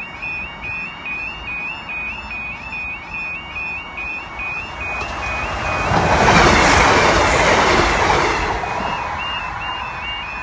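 Level crossing warning alarm sounding a rapid, high two-tone warble throughout. A Class 150 Sprinter diesel multiple unit passes close by: its engine and wheel noise swells from about five seconds in, is loudest about six to seven seconds in, and then fades, letting the alarm come through again.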